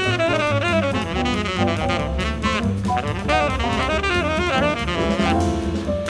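Jazz quartet playing: tenor saxophone in a fast line of quick notes over piano, bass and drum kit.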